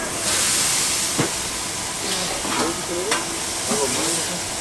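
Meat frying on a hot flat-top griddle: a loud, steady sizzle that swells up just after the start, with a few sharp clicks of a metal spatula on the steel.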